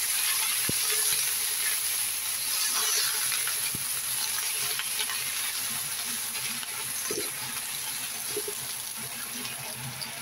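Choy sum stir-frying in hot oil in a wok: a steady sizzle, with a few light scrapes and taps of the spatula turning the greens. The sizzle slowly dies down.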